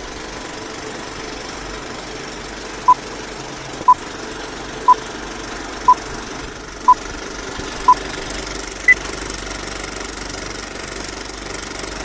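Old film projector running with a steady mechanical rattle, under a film-leader countdown: a short beep once a second, six times, then a single higher-pitched beep a second later.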